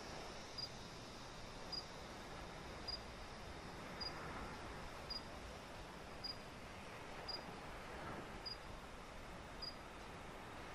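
A short, high chirp repeating evenly about once a second over a faint steady hiss.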